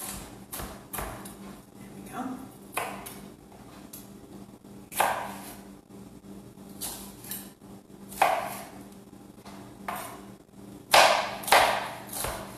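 Chef's knife chopping small red sweet peppers on a cutting board: irregular knife strikes, roughly one a second, the loudest near the end.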